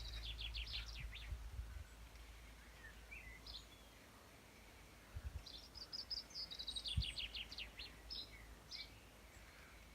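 Songbird singing: two quick runs of high, rapidly repeated notes, one at the start and a longer one about halfway through, with a few single chirps between them, over a faint low rumble.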